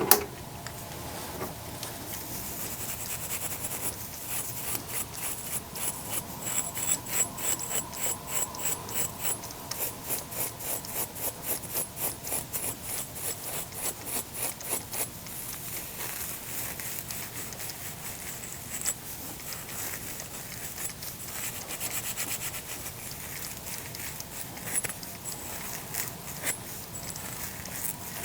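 Repeated scrubbing strokes, about two a second for roughly ten seconds, then fainter scattered rubbing, over a faint steady hum.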